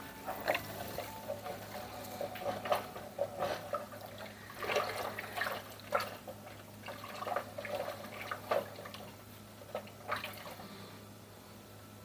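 Wooden spoon stirring thick simmering syrup in a metal pot: irregular wet sloshing and scraping strokes that thin out about ten seconds in. A steady low hum runs underneath.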